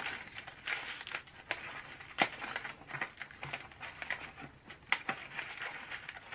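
Crumpled aluminium foil crinkling and heavy paper rustling as hands press the foil into a curved paper horn, with irregular crackles and a couple of sharp ticks, about two seconds and five seconds in.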